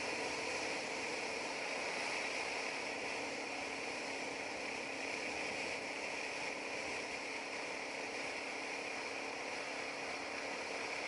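Steady wind rush and road noise from a motorcycle cruising at an even speed on a sealed highway, with a faint engine hum underneath; the sound is heard through a bike-mounted camera's microphone in the wind.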